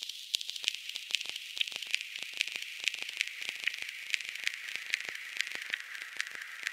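A steady high hiss full of sharp, irregular crackling clicks, several a second, like static.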